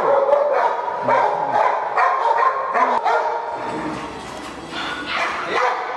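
Dogs barking: a pit bull and Rottweilers. The barks come about every half second for the first three seconds, ease off, then return about five seconds in.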